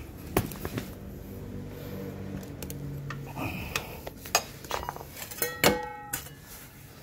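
Metal clinks and knocks as a steel oil drain pan is handled and set under a motorcycle's engine. Late on comes one louder clang that rings briefly.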